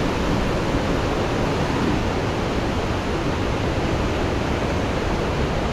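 Steady rushing roar of a large waterfall, Thompson's Falls.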